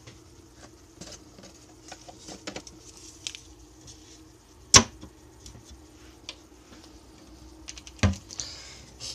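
Small clicks and light rustling from handling a wrapped green tea bag, with one sharp knock about five seconds in and a duller thump near the end.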